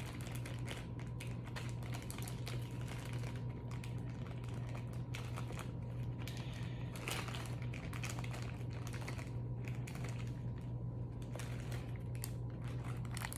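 Light, scattered clicks and taps, like keys on a keyboard or small objects being handled, over a steady low electrical hum.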